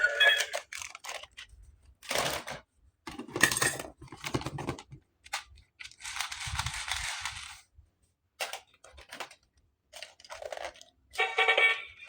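Hands unboxing and handling toy packaging and plastic toy parts: a series of short tearing, crinkling and clicking noises with pauses between them, and one longer tearing noise lasting over a second about six seconds in.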